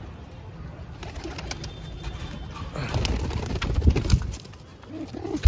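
Domestic pigeons cooing, with a burst of low rumbling and scuffling clicks from about three seconds in as a black pigeon is grabbed from the floor with the phone in hand.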